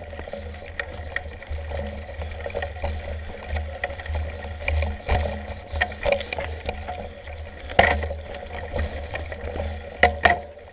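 Mountain bike ridden over a rough, leaf-covered forest trail, heard from a handlebar-mounted camera: a steady low rumble with irregular rattles and knocks from the bike over the ground, the sharpest around five seconds in, near eight seconds and twice near the end.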